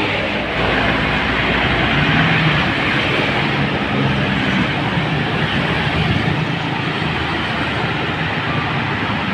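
A motor vehicle on the move: a steady mix of engine and road noise with no breaks.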